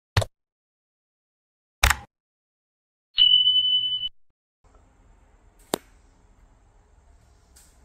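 Subscribe-button animation sound effects: two sharp mouse-style clicks, then a notification bell ding, a single high ring lasting about a second. After it comes a faint low rumble with one sharp tick.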